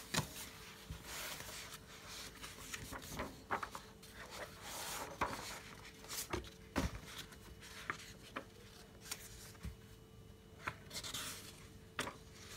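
Paper notebook pages being turned by hand: scattered soft rustles and flicks of paper, with a faint steady hum underneath.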